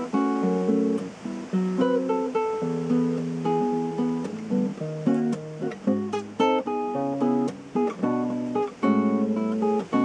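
Solo nylon-string acoustic guitar played fingerstyle: a slow melody picked over plucked chords, each note ringing on.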